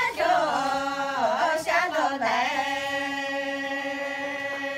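Miao women singing a welcome song without accompaniment. The melody dips and slides about a second in, then settles into one long held note.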